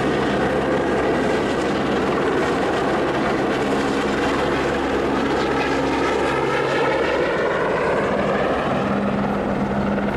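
Rescue helicopter running close by: a steady, loud rotor and engine noise whose tones slowly slide in pitch as it moves.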